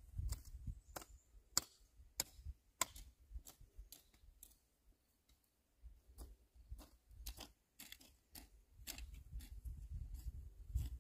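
Hand hoe chopping into dry, stubbly soil: sharp, irregular strikes about one or two a second, over a low rumble.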